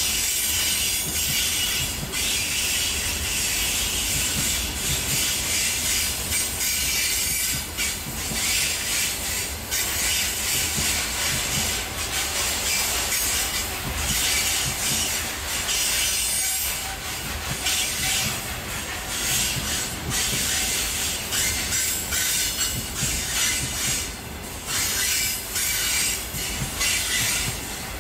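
Container freight train passing close at speed: a steady rush of wheels on rails with a strong high-pitched hiss, dipping briefly every few seconds.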